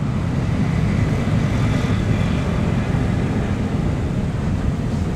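Steady low rumble of outdoor city street noise.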